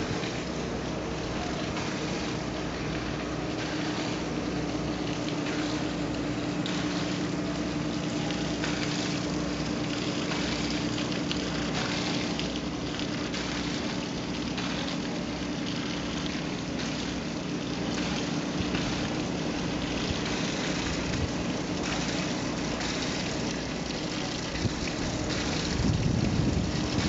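Waterfront ambience: a steady low mechanical hum, like a distant engine or machinery, under a constant rush of wind and water noise. Wind buffets the microphone in a louder gust near the end.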